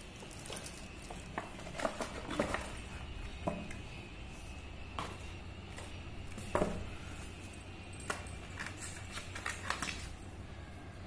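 Handling noise from unboxing a plastic-wrapped metal award plaque: scattered knocks and clicks from the plaque and its box, with crinkling of the plastic film. The loudest knock comes about six and a half seconds in.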